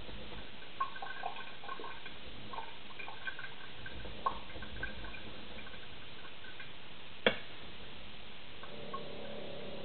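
Scattered light clicks and taps over a steady hiss, with one sharper click about seven seconds in.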